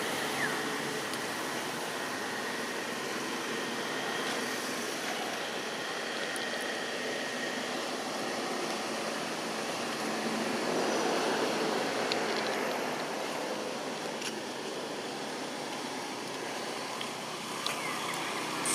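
Steady outdoor background noise: an even hiss with no distinct calls or knocks, swelling a little for a few seconds in the middle.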